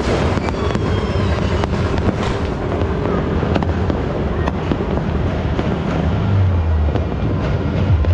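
Distant fireworks and firecrackers going off over a town, a scatter of sharp bangs and crackles at irregular intervals. A steady low hum runs underneath.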